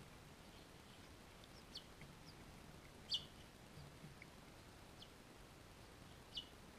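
Finches at the nest giving short, high chirps, about four clear ones, each a quick downward sweep, the loudest about three seconds in and another near the end, over a faint low hum.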